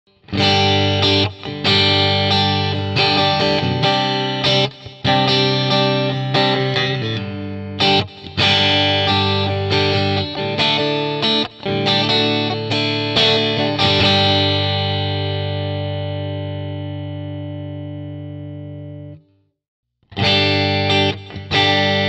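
Charvel San Dimas Style 1 electric guitar played with a clean tone, its humbucker split to single coil: a stretch of picked chords, then a last chord left ringing and slowly fading for several seconds before it cuts off. After a short gap the playing starts again near the end.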